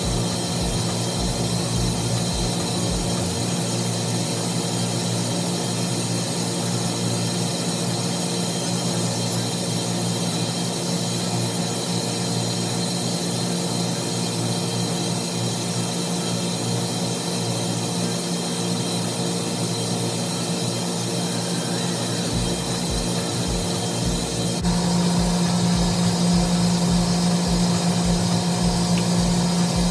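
Steady hum and whir of motor-driven machinery in a basement mechanical room, such as pump motors. The hum steps up louder about 25 seconds in.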